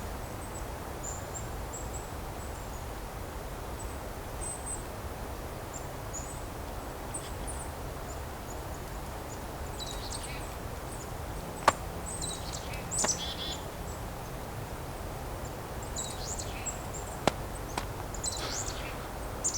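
Small songbirds of a mixed winter flock calling: very thin, high call notes scattered throughout, growing busier in the second half, with three sharp clicks over a low steady background hiss.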